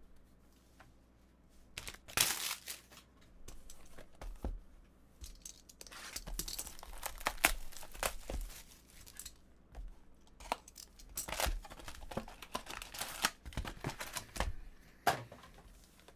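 Plastic shrink-wrap being torn and crinkled off a sealed hobby box of trading cards, in irregular bursts of tearing and rustling that come thickest through the middle and latter part.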